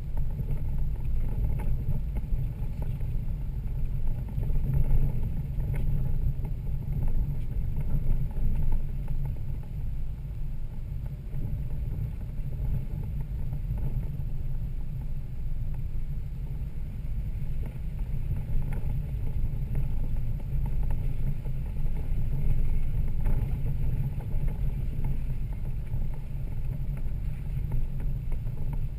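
Toyota Land Cruiser 80 Series driving: a steady low engine and drivetrain rumble that swells and eases a little, with a few faint knocks.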